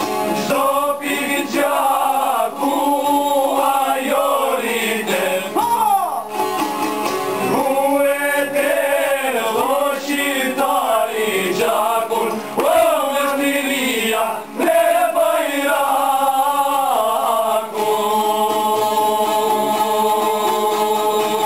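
A group of men singing an Albanian folk song, with long-necked plucked lutes accompanying them. Over the last few seconds the singing gives way to the lutes alone, on steady held notes.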